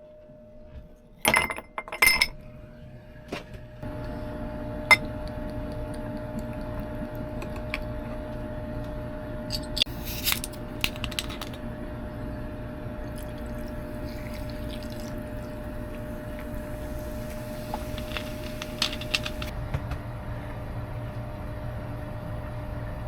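Dishes and utensils clattering and clinking as they are handled, loudest about a second in, with scattered clinks afterwards. A steady low hum starts about four seconds in and keeps going.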